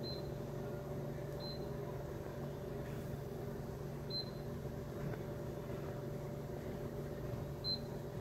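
Royal Vision vending machine's keypad beeping with button presses: four short high beeps, a second or more apart. Under them runs the machine's steady low hum.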